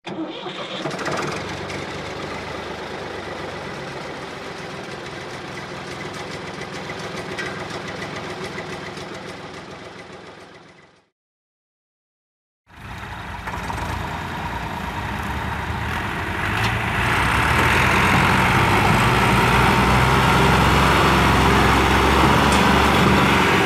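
Engine running for about ten seconds, fading out to a short complete silence near the middle. Then Massey Ferguson tractor diesel engines start up in the sound again and get clearly louder about two-thirds of the way in as the tractors pull a heavily loaded sugarcane trolley.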